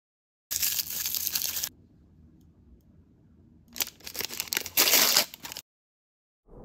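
Crinkly plastic L.O.L. Surprise blind-bag packaging being torn and crumpled, in two bursts: one about a second long, then after a quiet pause a crackly stretch of about two seconds.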